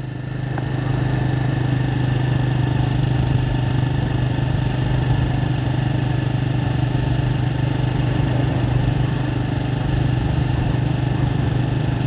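Engine of the moving vehicle carrying the recorder, running at a steady speed with a constant low hum and road noise; it picks up slightly in the first second, then holds even.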